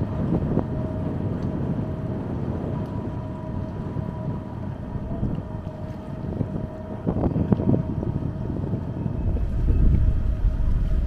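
Passenger ferry's engine droning steadily with a faint constant whine, under wind buffeting the microphone. The wind grows heavier about nine seconds in.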